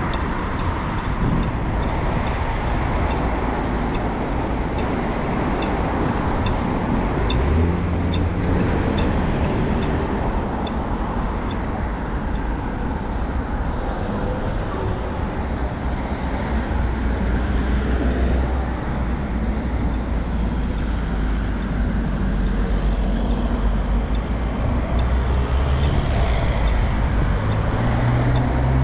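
Road traffic at a city intersection: cars passing with a steady rumble of engines and tyres. Through it runs a faint regular ticking from a pedestrian crossing signal.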